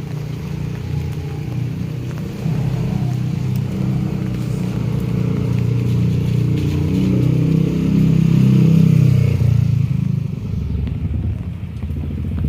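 A motor vehicle engine passing close by, growing louder to a peak about eight to nine seconds in and then fading.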